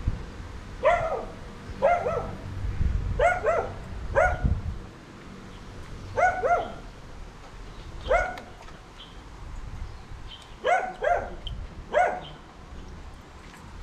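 A dog barking: about a dozen short barks, several in quick pairs, spread across the stretch.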